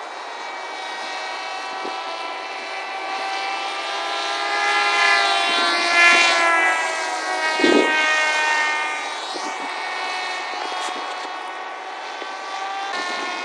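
Electric motors and propellers of RC foam combat flying wings whining overhead, their pitch sliding up and down as the planes pass and manoeuvre, loudest a little past the middle. A brief thump comes just after the loudest pass.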